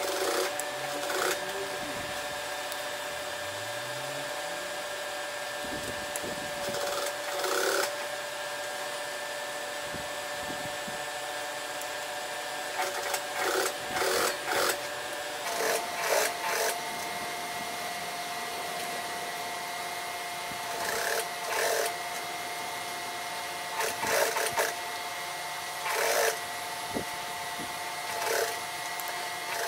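Industrial sewing machine stitching through a thick denim waistband in short runs of about a second each, with pauses between, over a steady motor hum.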